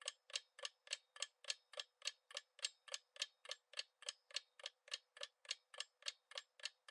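Countdown timer sound effect ticking like a clock, steady and faint, about three and a half ticks a second.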